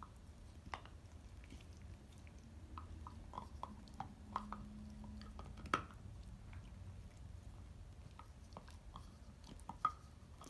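Irish terrier gnawing a hard Himalayan yak-milk cheese chew: irregular crunches and clicks of teeth on the chew, the sharpest about six seconds in and again near the end.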